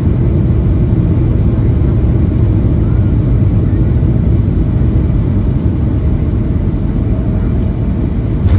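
Cabin noise of a Boeing 737-800 heard from a seat over the wing on final approach: the steady low rumble of its CFM56 turbofans and the rush of air over the extended flaps as the jet flares over the runway.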